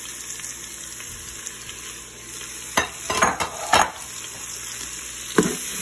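Diced onion, carrot and celery sizzling in melted butter in the stainless inner pot of an Instant Pot on sauté, a steady frying hiss. A few sharp knocks sound about three seconds in and once more near the end.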